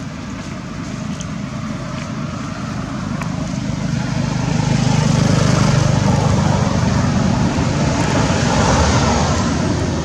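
A motor vehicle passing close by. Its rumble and road noise build to a peak about halfway through, then fade near the end.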